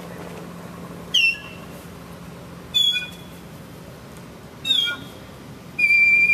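Four high-pitched whistled squeals, each dipping a little in pitch and then holding, spaced about two seconds apart; the last is held longest.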